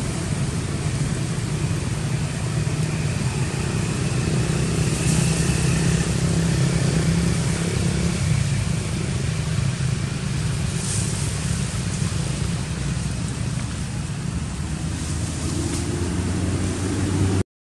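Steady low rumble of motor-vehicle engine noise, with a few short hissy patches; it cuts out briefly just before the end.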